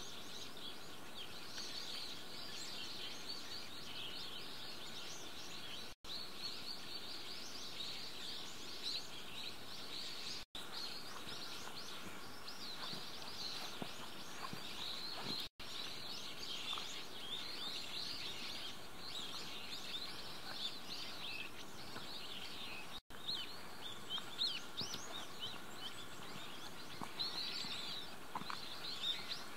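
Many small birds chirping and twittering in a continuous, overlapping chorus, with some louder chirps near the end. The sound drops out completely for an instant four times, where the recording is cut.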